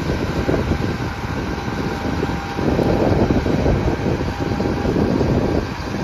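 Combine harvesters running while cutting wheat: a steady machine drone, with wind buffeting the microphone.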